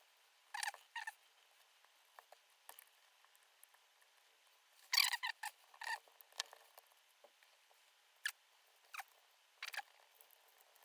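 Light plastic clicks and scrapes from prying at and handling the clipped-together case of a small Sony Walkman MP3 player, in scattered bursts, the loudest about five seconds in.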